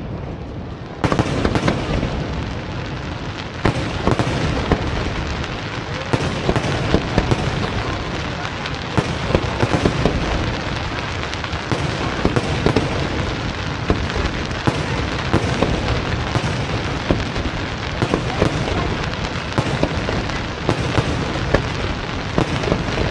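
Aerial fireworks display: firework shells bursting in quick succession, many sharp bangs over a continuous rumble and crackle, with the barrage getting louder about a second in.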